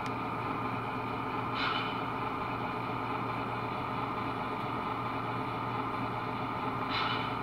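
Model diesel locomotive's onboard sound system playing a steady diesel idle hum while the engine stands still. The locomotive is not shutting down when switched off.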